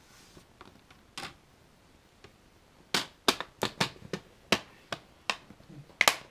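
Plastic screen bezel of a Lenovo ThinkPad T430u laptop being pressed back onto the display lid, its clips snapping into place. There is one sharp click about a second in, then a quick run of about ten sharp clicks in the second half.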